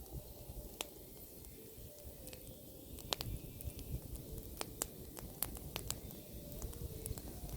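Bonfire of pruned apple branches burning, the wood giving off sparse, irregular crackling pops and snaps that come more often in the second half.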